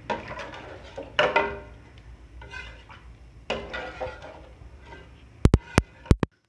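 Metal cooking pot and utensils clanking a few times, each knock ringing briefly, then four sharp loud clicks in quick succession near the end.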